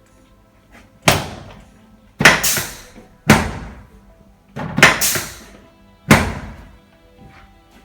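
Five loud knocks about a second apart, each dying away over about half a second, the fourth with a small hit just before it: a chiropractic drop table's sections snapping down during spinal adjustments.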